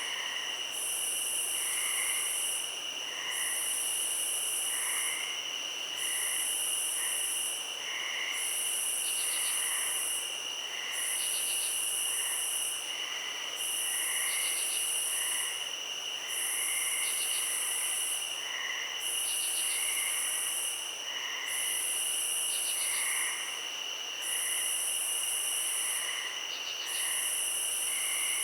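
Night insects calling together: a steady high cricket trill under a louder high-pitched buzzing call that repeats about every two seconds, with scattered short lower chirps.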